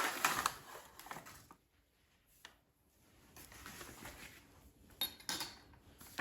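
Small kitchen handling sounds as a measuring spoon of sugar goes into the Instant Pot's metal inner pot: a brief rustling hiss at first, then a few light clinks and taps of the spoon near the end.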